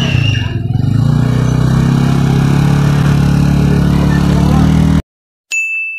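Motor scooter engine idling close by, cutting off abruptly about five seconds in. Shortly after, a single bright ding rings out and fades.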